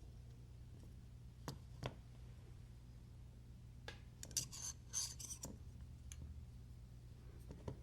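Small metal parts of a folding knife being handled during disassembly: two light clicks, then a brief burst of scraping and clicking about four to five seconds in, and one more click near the end.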